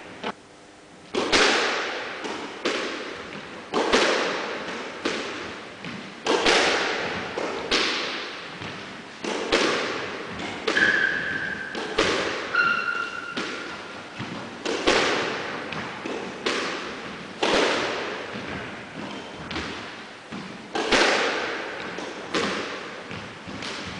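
Squash rally: the ball is struck by rackets and hits the court walls in a string of sharp, echoing thwacks about every second or so. Two short high squeaks come about halfway through.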